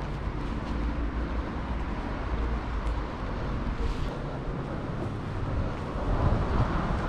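Steady city background of traffic rumble, with wind buffeting the microphone.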